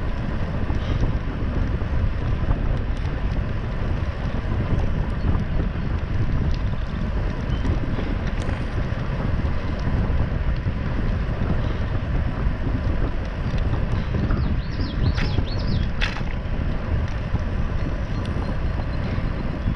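Wind rushing over the microphone of a camera on a moving bicycle, with the tyres rolling over a crushed-stone trail: a steady low noise.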